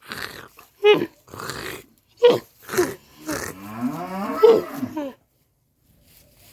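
Camel calling: a few short grunting calls with breathy exhales between them, then a longer call that bends up and down in pitch from about three to five seconds in, after which it goes quiet.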